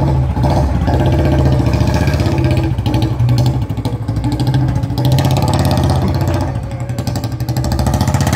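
Royal Enfield Bullet's single-cylinder four-stroke engine running with an even thumping beat as the motorcycle pulls away, the beat quickening about five seconds in.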